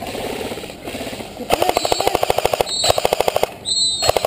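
Airsoft rifle firing on full auto: three rapid bursts of about a dozen shots a second, the first about a second and a half in and lasting about a second, then two shorter ones.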